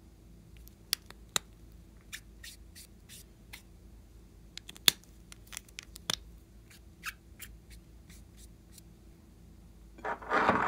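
Scattered light plastic clicks and taps as felt-tip markers are handled. Near the end comes a short, louder clatter of small plastic toy bottles being picked up.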